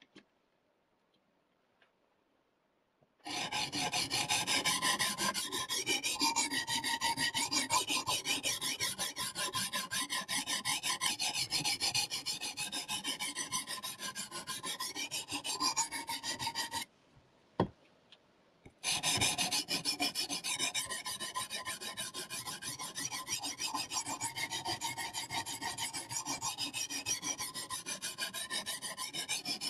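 A CBN sharpening stone on a KosiM guided-rod sharpener is stroked rapidly back and forth along the edge of a dull VG-10 steel knife, a steady scraping of abrasive on steel. About halfway the strokes stop for two seconds, with a single click as the clamped knife is turned over to its other side, then the strokes resume.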